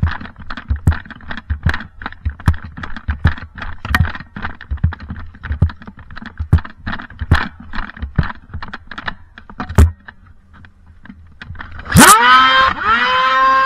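Quick, irregular clicks and thumps, a few a second, for about ten seconds. Electric guitar music starts near the end.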